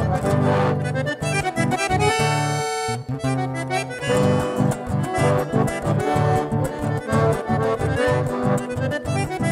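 Chamamé played on a button accordion with acoustic guitar accompaniment, in a quick rhythm with a pulsing bass. About two seconds in, the accordion holds one long chord for about a second before the rhythmic playing resumes.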